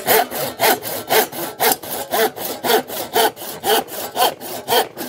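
Parkside 3-in-1 hand saw with a coarse wood-cutting blade sawing through a thin wood laminate board: even back-and-forth strokes, about two a second. The blade is going through pretty easy.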